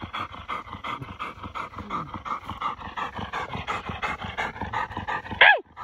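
Coon dog panting hard and fast, about six pants a second, with a faint thin whine running under it. A short, high whine falls sharply near the end.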